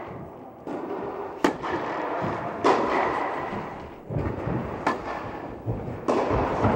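Tennis ball struck back and forth with rackets in a rally: sharp pops about a second or two apart, each ringing out in the reverberant indoor tennis hall.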